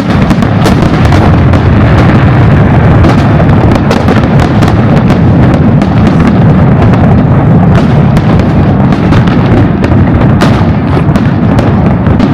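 Aerial fireworks barrage: rapid, overlapping bangs and crackles over a heavy continuous rumble of shell bursts. It kicks in suddenly and stays very loud throughout.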